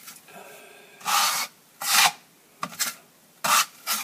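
Drywall knife scraping across the wall as it spreads a first coat of joint compound over the crack tape, in about four short swipes.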